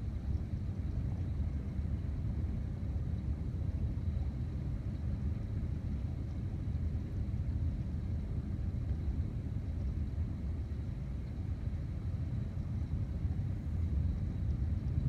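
Continuous low rumble of distant thunder from a lightning storm, a constant sound like a freight train going by, swelling slightly near the end.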